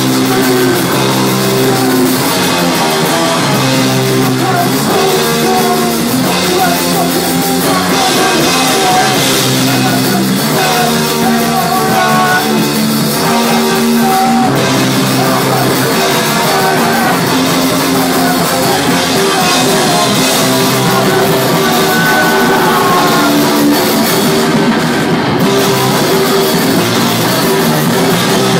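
Live rock band playing loudly, with drum kit and guitar.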